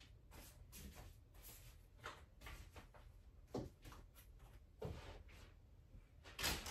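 Faint handling sounds of yarn and a plastic bag being moved about: scattered soft rustles and taps, with a longer, louder rustle near the end, over a low steady hum.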